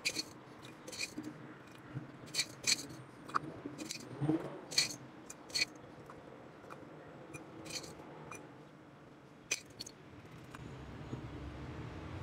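Citric acid crystals being spooned into a glass of water on a kitchen scale: about a dozen small, sharp clicks and ticks at irregular intervals, as of granules and the spoon touching the glass.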